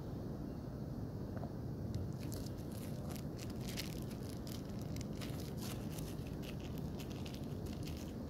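Plastic bubble wrap and film crinkling and crackling in irregular bursts as fingers pull it from the end of a taped packing tube, starting about two seconds in, over a steady low background rumble.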